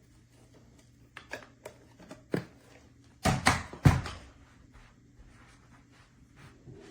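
Scattered light clicks and knocks of hard objects being handled, with a louder cluster of knocks in the middle, over a faint steady hum.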